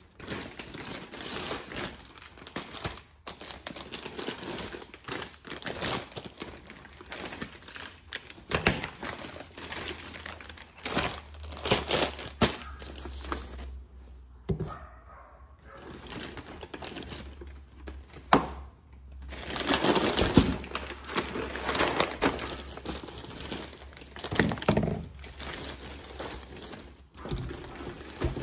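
Plastic packaging and a reusable plastic shopping bag crinkling and rustling as groceries are unpacked, with frequent sharp crackles and the odd thud as packets are set down on the benchtop.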